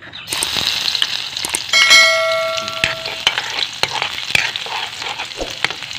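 Chopped garlic sizzling as it hits hot cooking oil in a wok, stirred with a ladle that clicks and scrapes against the pan. About two seconds in, a metallic clang rings for about a second, the ladle striking the wok.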